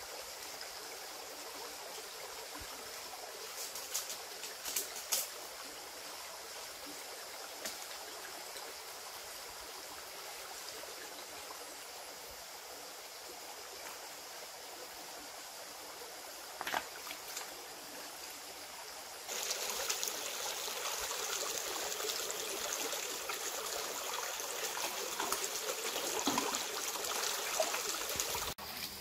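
Shallow rocky stream trickling steadily over stones, with a few short, sharp sounds. About two-thirds of the way through, the water becomes louder and fuller.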